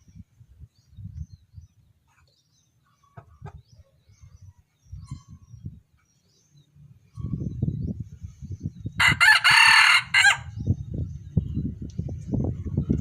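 A junglefowl rooster crows once, about nine seconds in, a call lasting about a second and a half. Low rumbling noise runs under it, louder in the second half.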